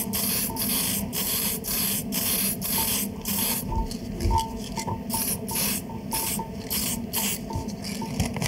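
Aerosol spray-paint can hissing in many short bursts with brief gaps, as red paint is sprayed through a paper stencil.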